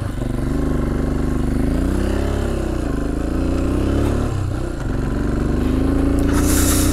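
A vehicle engine running just after starting, its revs rising and falling a few times, then climbing steadily near the end.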